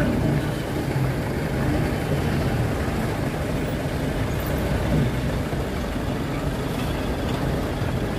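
Diesel dump truck engines running at low speed as a loaded truck crawls close past, with a steady, even engine sound throughout.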